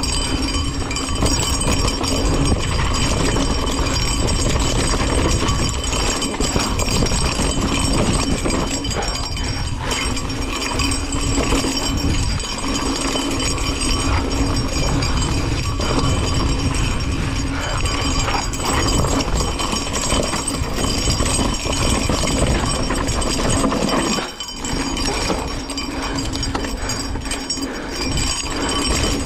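Mountain bike ridden down a dirt singletrack, heard from a camera on the bike: tyres rolling and crunching over dirt, with the bike rattling and knocking over bumps and a steady low rumble. There is a short lull about three-quarters of the way through.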